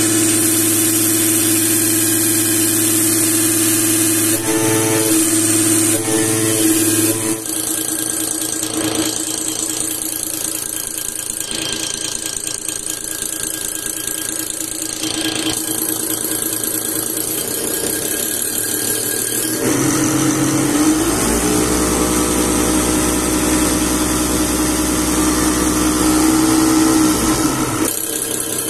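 Genco diesel injection-pump test bench driving a VE rotary injection pump, running steadily with a high hiss from the test nozzles spraying into the measuring glasses. About seven seconds in the sound turns rougher and a little quieter; around twenty seconds a tone rises in pitch as the bench changes speed, holds, and drops away near the end.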